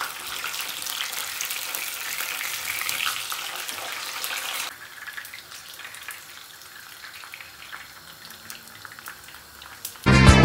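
Fish sizzling and crackling as it fries in hot oil in a pan. The sizzle drops to a quieter crackle a little before halfway. Music with a beat starts right at the end.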